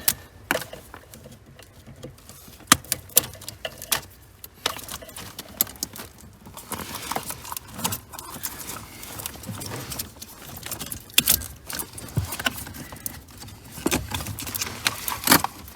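Irregular sharp plastic clicks and snaps with rustling, a few of them much louder: cable ties and connectors being unclipped from a car's wiring harness under the dashboard.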